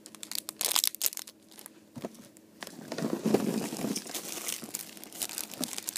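Plastic wrapping crinkling in irregular crackles as squishy toys are handled, with a denser rustle for a second or so in the middle.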